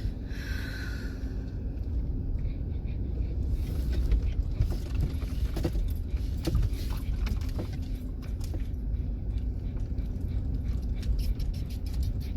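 Van driving slowly over a rough dirt track: steady low rumble of engine and tyres, with frequent clicks and rattles of loose things shaking inside.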